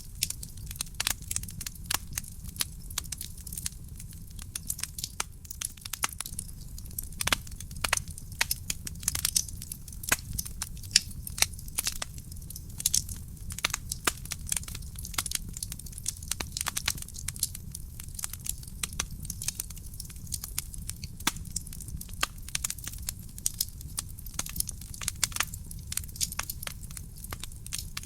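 Wood fire burning in a fireplace, crackling with many irregular sharp pops and snaps over a low steady rumble of the flames.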